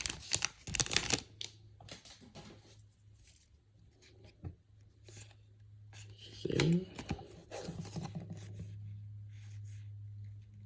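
Crinkling and tearing of a trading card pack wrapper, loudest in the first second, followed by faint scattered handling sounds as the cards are sorted. A steady low hum comes in after about a second.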